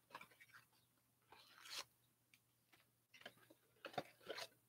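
Faint handling of a cardboard hobby box of hockey card packs: a few soft rustles and scrapes as the box is opened and packs are slid out, with a sharp click about four seconds in.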